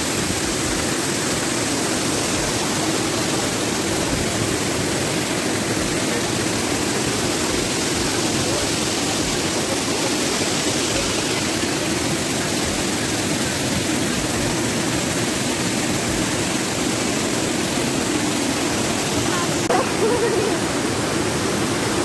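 Steady rush of a waterfall and white-water mountain stream pouring over rocks, an even roar with no break.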